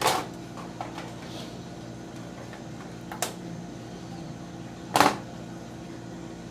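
A few sharp clacks of a ruler and pencil handled against the metal motherboard tray: one at the start, a lighter one about three seconds in and the loudest about five seconds in, over a steady low hum.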